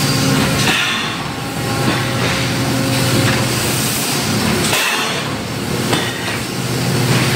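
Factory machinery running: a low steady hum under a constant mechanical din, with a few sharp metallic knocks.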